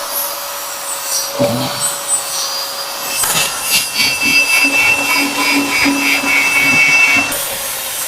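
Axe blade being sharpened, its steel edge ground against an abrasive with a steady rasping. The grinding grows denser and harsher from about three seconds in until about seven.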